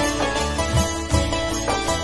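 Instrumental interlude of a Bengali devotional song to Jagannath: a melody over a steady drum beat, with no singing.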